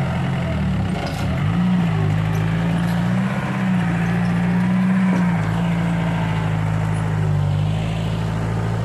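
Heavy earthmoving machine's diesel engine running under load. The pitch dips about a second in, then climbs back and rises and falls as the work load changes.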